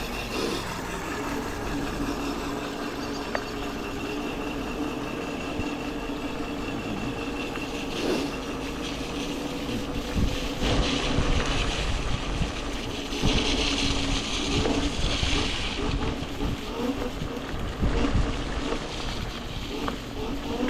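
Wolf King GTR electric scooter riding along with its rear brake disc rubbing on the pads, giving a steady droning tone that sounds like a train. Under it are wind noise on the microphone and tyre rumble. The rubbing comes from a bent disc or a wheel out of alignment.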